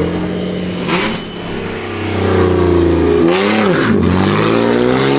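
A car engine revving: the revs hold steady, rise and fall in a quick blip a little past the middle, then climb again and hold high.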